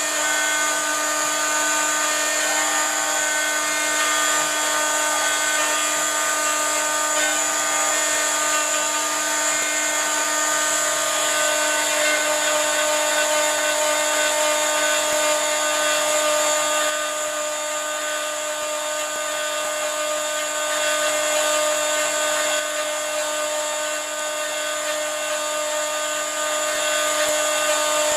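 Stepcraft M.1000 CNC router's spindle running at about 18,000 RPM as its carbide bit cuts into wood: a steady high whine with several held tones. It drops a little in level for a few seconds about two thirds of the way through.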